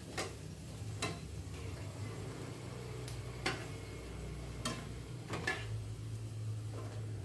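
Metal utensils clinking and tapping against a wok and a wire strainer while frying, about seven sharp taps at irregular intervals, over a faint sizzle of hot oil.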